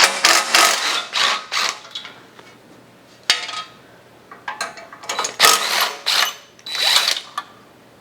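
Ratchet wrench clicking in several quick runs, with pauses between, as the muffler bolts are worked loose.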